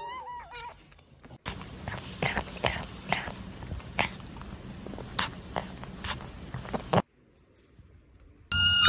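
Kitten mewing, a few short rising-and-falling mews in the first second. Then a stretch of irregular soft clicks and taps over a low hiss, ending in a moment of near silence.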